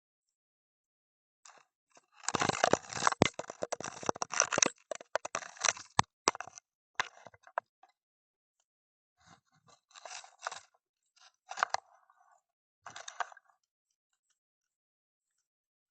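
Crackling, scraping clicks picked up through an underwater fishing camera's housing. They come in a dense run of about five seconds, then in three short clusters after a pause.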